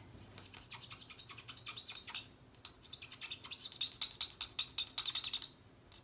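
Stampin' Blends alcohol marker scratching across cardstock in quick back-and-forth colouring strokes. The strokes come in two runs with a short pause about two seconds in.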